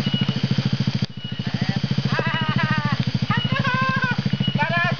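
Small motorcycle engine running at a low, steady speed. From about two seconds in, voices call out over it several times.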